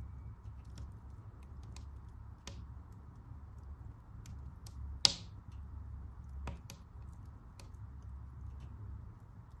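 Wood fire burning in a fireplace, crackling with scattered sharp snaps over a steady low rumble of the flames, one loud pop about five seconds in.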